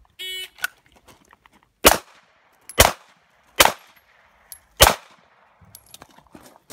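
Electronic shot timer beeps once, then a pistol fires four shots, about a second apart, shot strong hand only.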